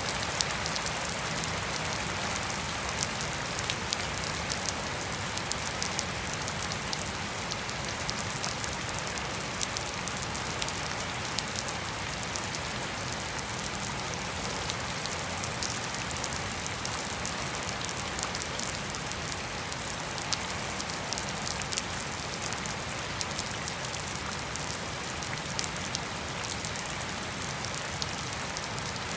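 Steady rain falling on wet grass and puddled ground: an even hiss dotted with frequent sharp ticks of single drops.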